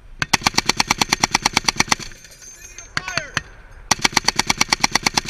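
M2 .50-calibre heavy machine gun firing two bursts of about two seconds each, at roughly ten rounds a second, with a pause of about two seconds between them. A few short ringing tones sound in the gap.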